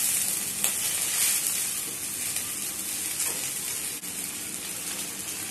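Oil sizzling under a panful of curry leaves, mint and coriander being fried in a stainless-steel kadai, with a few light scrapes and knocks of a wooden spatula in the first half. The greens are now well fried.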